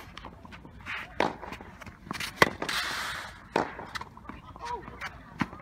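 Tennis ball struck by rackets and bouncing during a rally on a sand-filled artificial-grass court. Sharp pops come about once a second, the loudest about two and a half seconds in, followed by a brief scuffing hiss.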